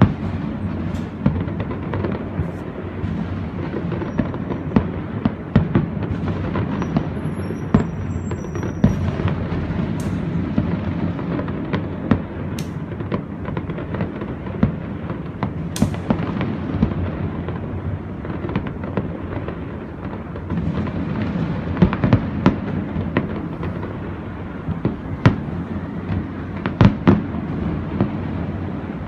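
Fireworks display: a steady barrage of aerial shells booming into a continuous low rumble, with many sharp cracks and pops throughout, growing denser near the end.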